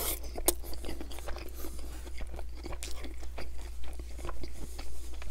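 A person biting into and chewing a Subway chicken, bacon and cheese sub: a crunch or two as the bite is taken at the start, then steady chewing with many small crunches and clicks.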